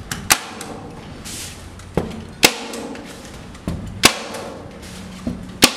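Hand staple gun firing four times, about one and a half seconds apart, each sharp snap preceded by a softer click, driving staples through a plastic tarp into the wooden frame.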